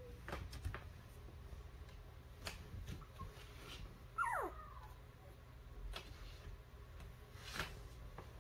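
A newborn puppy gives one short squeak that falls sharply in pitch, about four seconds in, over a low steady hum. A few faint clicks are scattered around it.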